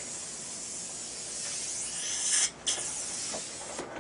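Dental suction hissing steadily, swelling louder and cutting out for a moment about two and a half seconds in.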